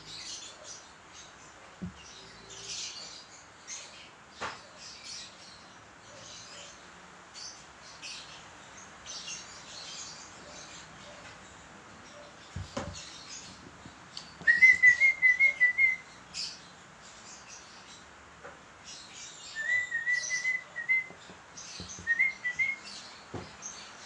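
Pet rosy-faced lovebird chirping on and off, with three loud runs of quick, rapid chirps about halfway through and near the end. A few soft knocks are heard.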